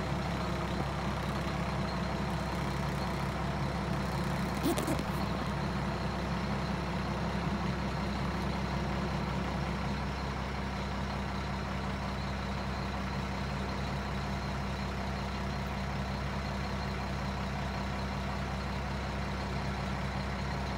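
Garbage truck engine idling steadily, with one brief sharp sound about five seconds in.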